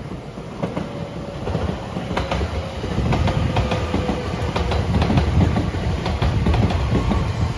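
A JR West 227 series 'Urara' electric train approaching and passing close by, its wheels clacking over rail joints. A low rumble grows much louder about three seconds in as the cars go past, under a faint, slightly falling whine.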